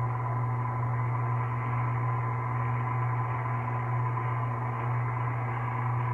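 KitchenAid Classic Plus stand mixer running with its dough hook, mixing flour into a wet bread-dough mixture: a steady motor hum with a fainter, even higher whine.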